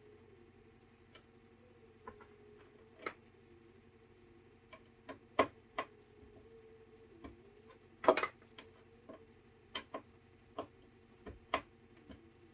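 Irregular light clicks and taps, more than a dozen scattered unevenly, the sharpest about five and eight seconds in, over a faint steady hum.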